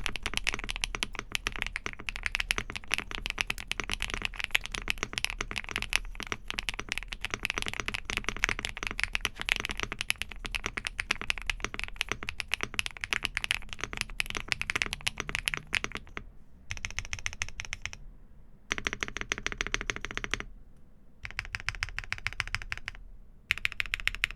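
Fast typing on a mechanical keyboard fitted with MMD Princess V4 tactile switches: a dense run of keystrokes for about sixteen seconds, then three shorter bursts of keystrokes with brief pauses between them.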